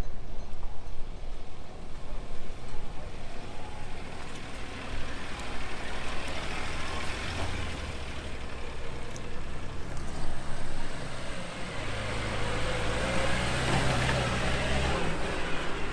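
Off-road 4x4 engine running under load as the vehicle drives over rough ground. A broad rushing noise of tyres and terrain builds from about six seconds in, and the engine note rises a little near the end.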